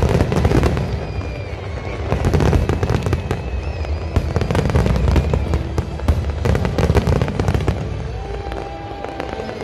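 Barrage of aerial firework shells bursting: dense, rapid bangs and crackle. It is heaviest in volleys in the first second, two to three seconds in and five to seven seconds in, and thins out near the end.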